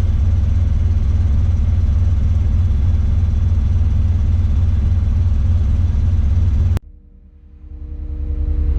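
Tadano 180G-5 all-terrain crane's engine running steadily as a deep rumble heard from inside the operator's cab. About seven seconds in the sound cuts off abruptly and then fades back up.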